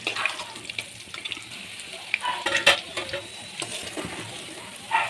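Potato wedges frying in oil in a metal kadai: a steady sizzle, with a spatula scraping and knocking on the pan as the nearly done wedges are turned, the loudest knock a little past halfway.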